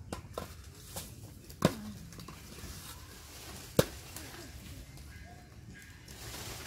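A few sharp taps and knocks, the loudest a single sharp knock about four seconds in, with a brief falling vocal sound about a second and a half in.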